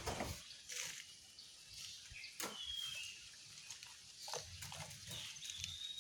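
A bird cage being washed with dish soap and water: a few short, irregular splashing and scrubbing noises. Faint high chirps from birds are heard now and then.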